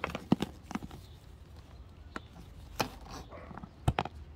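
Scattered sharp plastic clicks and taps as hands handle the inflatable boat's air valve and the pump hose's nozzle, with a louder double click near the end.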